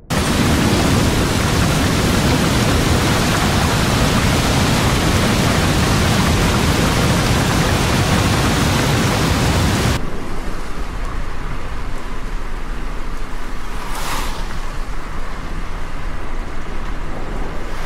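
Heavy rain falling in a dense, even hiss. About ten seconds in it cuts to a softer rain with a low rumble beneath it. A short, sharp crackle follows a few seconds later.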